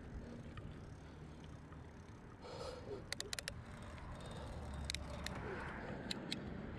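Riding a bicycle: steady wind and road rumble on the handlebar camera, with sharp clicks and rattles from the bike, a quick cluster of about five about three seconds in and a few single ones later.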